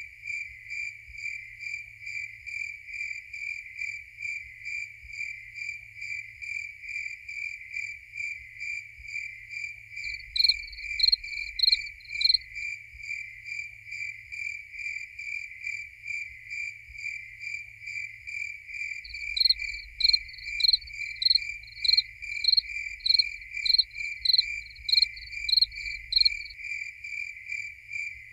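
Crickets chirping: one cricket keeps up a steady, even chirping, and a second, higher-pitched cricket chirps louder in two spells, briefly about ten seconds in and again for several seconds in the second half, at about two chirps a second.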